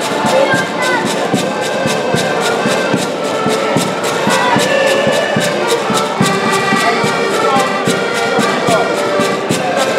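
Several accordions playing a tune together in unison, with a regular beat pulsing a few times a second under the sustained chords.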